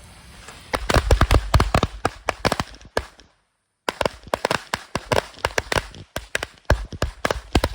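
A 100-count strip of Phantom firecrackers going off in a rapid, irregular string of sharp bangs that starts about a second in, with a short dead break about halfway through.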